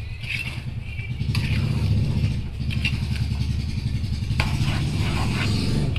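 A steel spoon stirring and scraping chicken and spice masala in an aluminium pot, with a couple of sharp clinks against the metal. Underneath is a steady low rumble like an idling engine.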